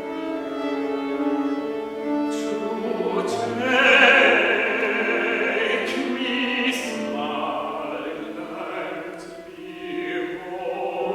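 Opera music: a trained operatic voice sings over instrumental accompaniment of held chords, swelling loudest about four seconds in and easing off near the end.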